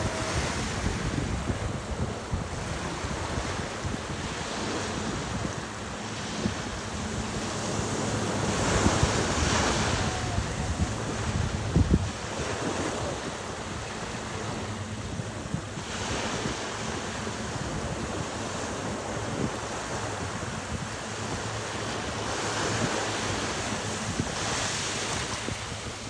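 Small sea waves breaking and washing up over a sandy, pebbly shore, the wash swelling louder every several seconds, with wind rumbling on the microphone. One short thump comes about twelve seconds in.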